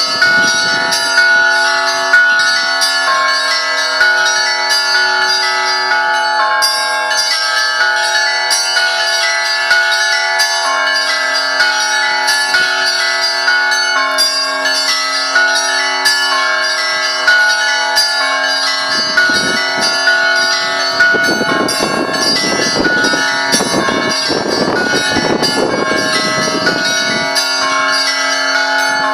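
Russian Orthodox church bells ringing a continuous peal: small high bells struck rapidly, several times a second, over the long ring of larger, deeper bells. A rougher noise mixes in underneath for several seconds in the second half.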